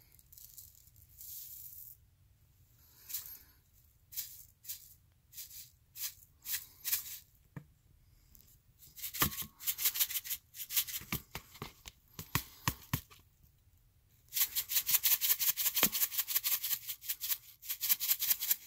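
Fish-food pellets rattling in a small container as it is shaken over the bowl: scattered short shakes at first, then a long, fast, steady shake near the end.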